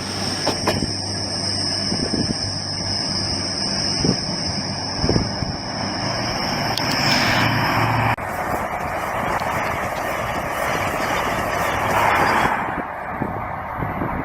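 A train running through the station, its rumble steady, with a high-pitched squeal that cuts off about eight seconds in.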